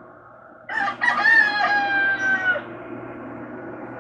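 A rooster crows once, starting about a second in: a single drawn-out call of about two seconds that falls slightly at the end. A steady low hum runs beneath it.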